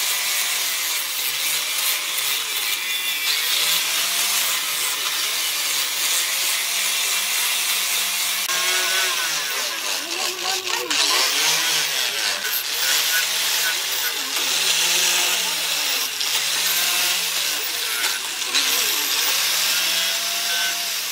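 Electric angle grinder with a sanding pad grinding the steel of a cleaver blade made from chainsaw steel: a steady motor whine over a hissing scrape of abrasive on metal. The motor's pitch repeatedly dips and recovers as the pad works across the blade.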